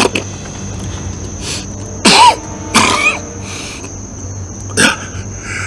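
A man coughing and clearing his throat: two loud coughs close together about two seconds in, and another a little before the end.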